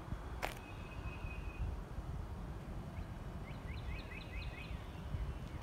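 Outdoor ambience with a low steady rumble, a single click about half a second in, then a thin steady whistle for about a second. About three and a half seconds in, a bird gives a quick run of about seven short falling chirps.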